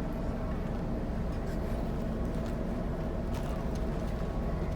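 Steady low rumble aboard a cruise ship, with a faint steady hum above it and a few faint clicks.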